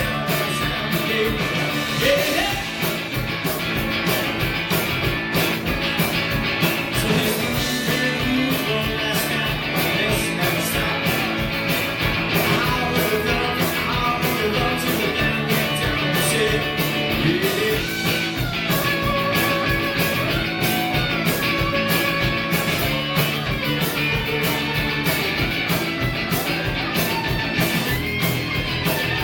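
Rock band playing live, with singing, guitar and a steady drum beat.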